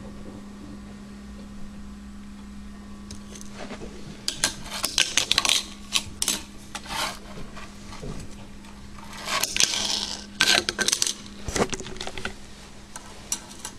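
Quick light clicks, taps and clatters on the wooden ramps of a tabletop fingerboard skate park, starting a few seconds in and coming in uneven flurries. Before them a steady low hum runs and then stops.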